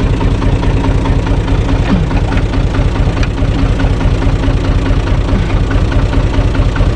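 Diesel engine of a U445 4x4 DT tractor idling steadily, a four-cylinder diesel.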